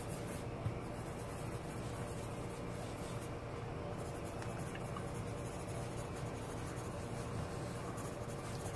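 Graphite pencil scratching steadily across drawing paper as a figure is sketched.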